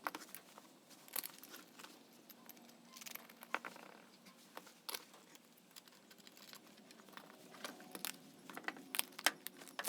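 Scattered small clicks and light knocks of a small wheel's hub, bolts and tyre being handled during reassembly, with the taps coming closer together in the last few seconds.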